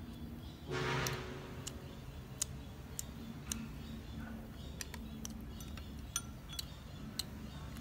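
Eating sounds: chewing with a scattered series of sharp mouth clicks and smacks, over a steady low background. About a second in there is a short, louder pitched sound.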